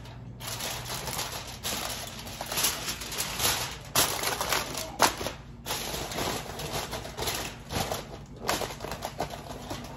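Aluminium foil crinkling and rustling as it is wrapped, in uneven crackles with a sharper crackle about four seconds in and another about five seconds in.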